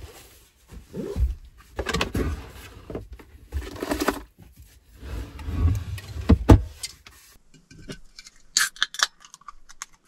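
Handling noises inside a small camper: a seat cushion is lifted and a portable fridge opened, with a run of knocks, bumps and rustles and one loud knock about six and a half seconds in, as a drink can is taken out and set on a table. A few sharp clicks follow near the end.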